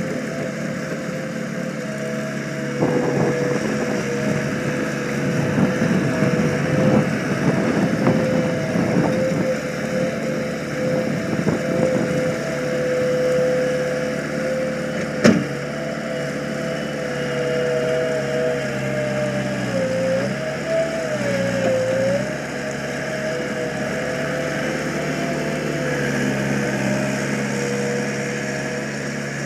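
Gehl 6635DXT skid steer's engine running steadily as it works. A stretch of rattling in the first third fits a bucket of rock and dirt being tipped into the steel bed of a dump truck. A single sharp knock comes about halfway, and the engine pitch sags briefly about two-thirds in, as under load.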